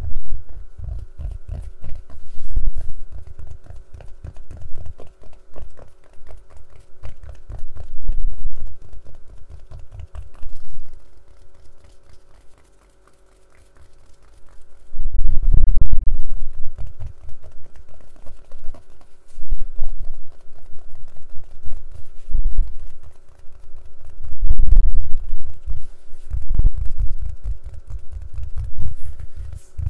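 Close-miked tapping and scratching on a case: rapid runs of small clicks and taps with heavy low thuds, pausing briefly about halfway through before starting up again.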